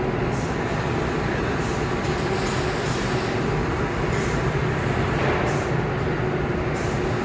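Steady mechanical running noise, a constant hum and rumble with a hiss above it, holding level throughout, as of industrial machinery running in a shop.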